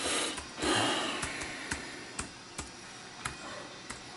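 A person breathing out heavily twice, then a slow run of light, sharp single clicks, about one every half second and irregularly spaced.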